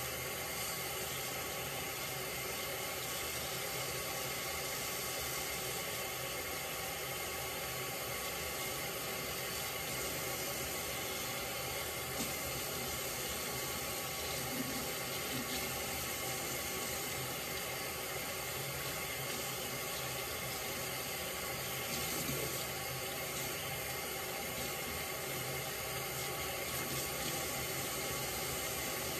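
Tap water running steadily into a sink as a wig is wetted under it.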